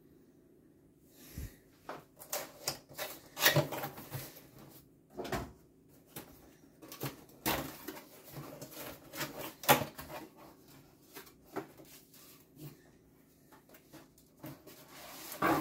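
Cardboard box being opened by hand: flaps pulled up and folded back, with irregular scraping and rustling of cardboard and of the plastic packaging inside, and a few sharper knocks.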